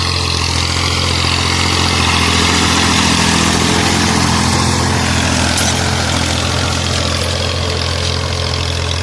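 Massey Ferguson 240 tractor's three-cylinder diesel engine running steadily while pulling a plough, a little louder a few seconds in, then easing slightly.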